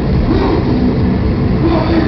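Live heavy metal concert: loud distorted band sound and crowd, with wavering voices over a dense, unbroken wall of noise.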